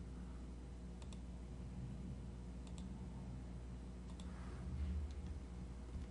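A few faint computer mouse clicks, some in quick pairs, over a steady low electrical hum.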